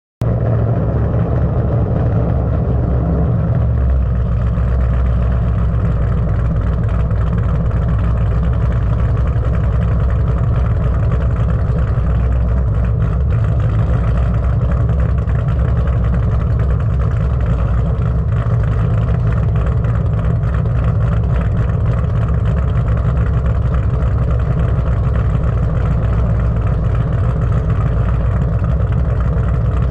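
Ford Mustang GT's 4.6-litre three-valve V8 running steadily with a deep, loud exhaust note, holding an even pitch without revving.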